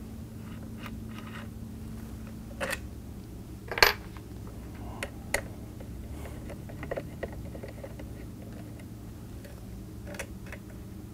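Scattered small metallic clicks and clinks as a screwdriver backs the action screws out of a rifle stock and a screw is handled, the sharpest clink about four seconds in. A faint steady hum sits underneath.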